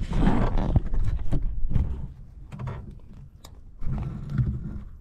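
Handling noise from the camera being adjusted by hand: a low rumble of rubbing with scattered sharp knocks and clicks, loudest in the first two seconds and again briefly near the end.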